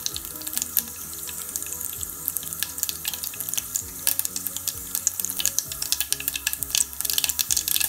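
Mustard seeds sizzling in hot oil, with sharp crackles as the seeds begin to pop. The popping comes thicker near the end.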